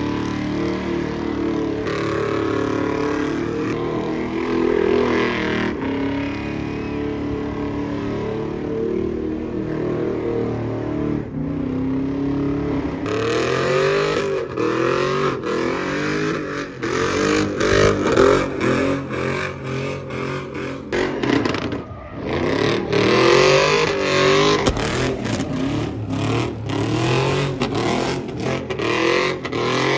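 Lowered Chevrolet Silverado pickup doing a burnout, its engine revving hard. The engine holds at high revs for roughly the first half, then revs up and down over and over for the rest.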